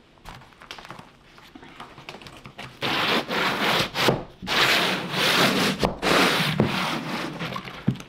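Wooden float pushed in long strokes over Ditra XL plastic uncoupling membrane, scraping across its dimpled surface to embed it in fresh thin-set. After a few faint ticks, about four long scraping strokes start about three seconds in.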